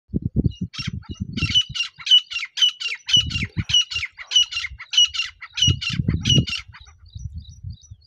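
Grey francolin call played from a phone as a lure: a fast run of shrill paired notes, about two a second, each note falling in pitch, that stops about seven seconds in. Low thumps come and go underneath.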